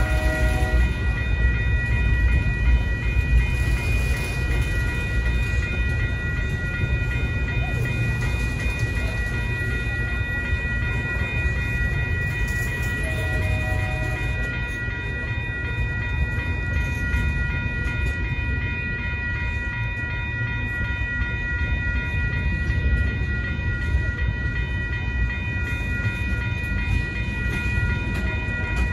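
Freight cars (covered hoppers, a tank car, a centerbeam flatcar) rolling past a grade crossing with a steady low rumble of wheels on rail. Over it the crossing's warning bell rings without pause.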